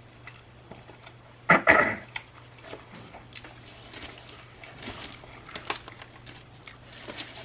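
Close-up chewing and wet mouth sounds from eating a double bacon burger, with scattered small clicks and one louder burst about one and a half seconds in. A steady low hum runs underneath.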